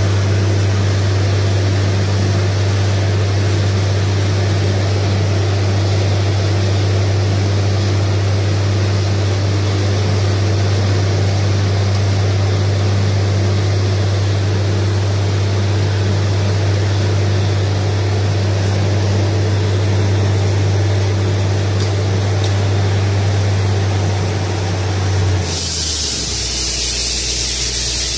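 Truck-mounted borewell drilling rig running: a steady low drone from its engine and air compressor under a dense rushing noise as compressed air blows rock dust up out of the bore. Near the end the sound switches abruptly to a sharper, higher hiss.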